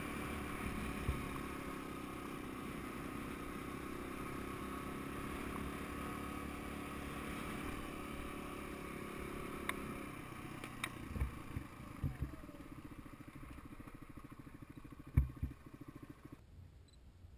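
Suzuki DR200 single-cylinder four-stroke dirt bike riding along at a steady pace, then easing off to a low, uneven running as the bike slows. Several sharp knocks come in the second half, the loudest about fifteen seconds in.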